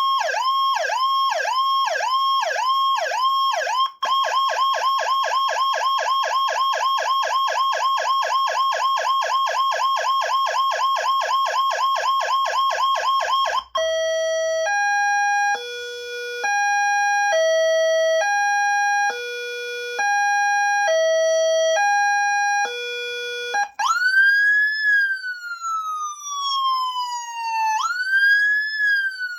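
Whelen WSSC30 electronic siren speaker with built-in amplifier stepping through its tones: a yelp sweeping up and down about twice a second, switching about four seconds in to a much faster warble. About halfway through it changes to a stepped tone hopping between a few fixed pitches, and near the end to a slow wail that rises quickly and falls slowly, twice.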